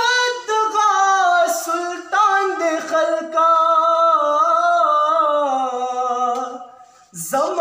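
A man singing a Pashto ghazal unaccompanied, drawing out long wavering notes that glide up and down without clear words. He breaks off briefly for a breath just before the end.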